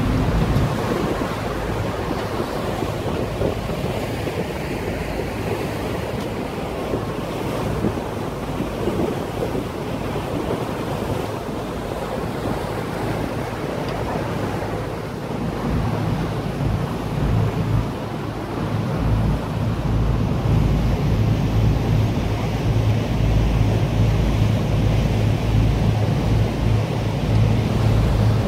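A river tour boat under way: its engine drones low while water rushes along the hull and wind buffets the microphone. The engine drone grows louder a little past halfway through.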